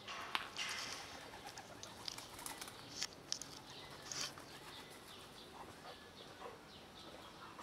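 Faint rustling and scuffing in dry grass and gravel as a cat bolts away. There is a sharp click just after the start, then a few scattered crunches.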